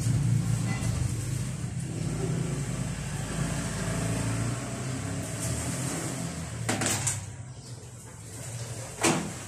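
Motor scooter engine idling steadily, then shut off about seven seconds in with a click; a sharp knock follows near the end.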